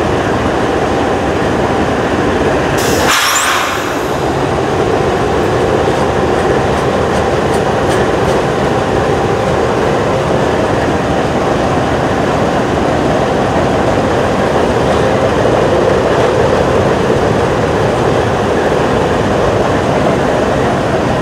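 Covered grain hopper cars of a freight train rolling steadily past on the adjacent track, wheels and cars rumbling, with a stopped GE ES44AC diesel locomotive idling close by. A brief hiss comes about three seconds in.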